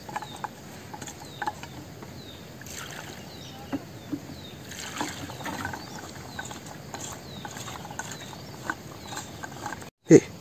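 Hands rubbing and stirring wet Bambara groundnuts in a metal pot, the shells knocking together in small irregular clicks. Short high chirps repeat in the background, and a brief dropout near the end is followed by a short loud thump.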